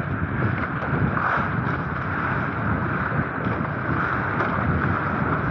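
Steady wind buffeting the microphone, over water rushing past the hulls of a Hobie Cat 16 catamaran sailing at speed.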